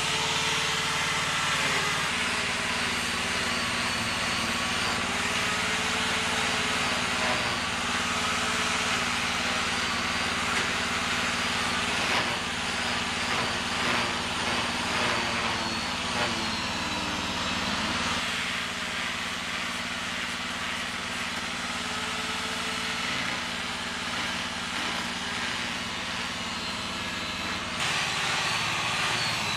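A small engine running steadily, its tone shifting abruptly a few times.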